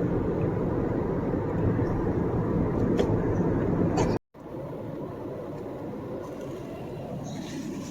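Steady road and engine noise inside a moving car's cabin. About four seconds in it cuts out abruptly and resumes at a noticeably lower level.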